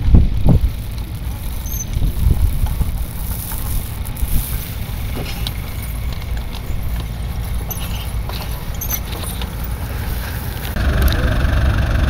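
Low outdoor rumble with a few gusty thumps near the start, with tractor engines running in the distance. Just before the end it cuts to a vintage tractor's engine running steadily close by as it pulls a plough.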